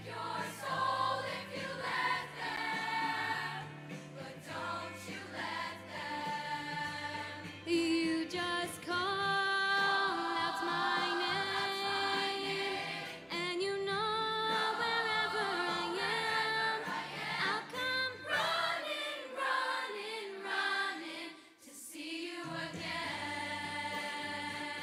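Middle school show choir singing together in sustained, held chords over a low accompaniment. The low notes drop out for a few seconds about 19 seconds in and come back near the end.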